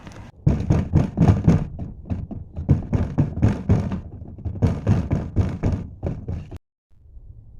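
A rapid, irregular series of heavy thuds and knocks, several a second, that cuts off abruptly near the end and gives way to a faint low hum.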